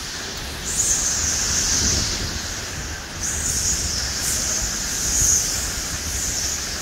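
Hurricane wind and heavy rain rushing through a screened pool enclosure, surging in two long gusts, about a second in and about three seconds in, with wind buffeting the microphone as a low rumble.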